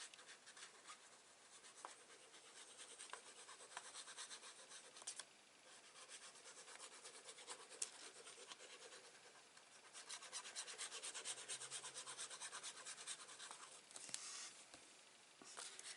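Faint rubbing and scratching of card stock being handled and glued down by hand, with a quick, even run of ticks about ten seconds in lasting some four seconds.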